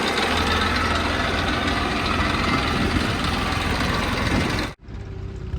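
Heavy diesel engine of earthmoving machinery running loud and steady. About five seconds in, a cut drops it to a quieter engine running.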